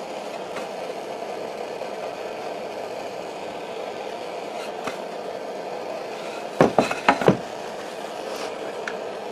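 Propane blowtorch burning with a steady hiss, turned up to scorch the wooden boards. A few sharp knocks come about two-thirds of the way through as a wooden board is set down on the bench.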